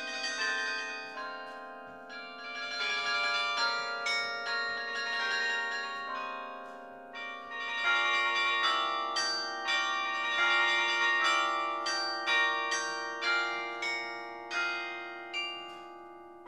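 Carillon bells played from the baton keyboard: a melody with struck notes ringing on and overlapping into chords, ending in a run of single strokes a little under a second apart.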